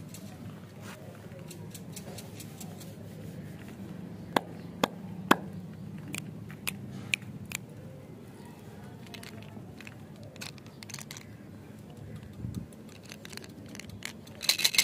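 Plastic candy packs and toys being handled, giving sharp clicks and light tapping over a faint steady low hum, with a quick burst of rattling near the end as a plastic umbrella-shaped container of small candies is picked up.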